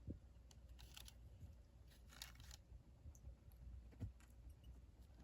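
Near silence, broken by two faint brief rustles and a few light taps.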